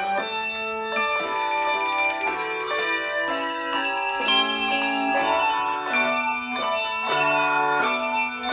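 Handbell ensemble playing a piece: chords of ringing bell tones struck again every half second or so, each left to ring on.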